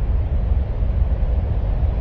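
Steady, low ambient noise, heaviest in the bass and without any distinct events, presented as the sound of Mars.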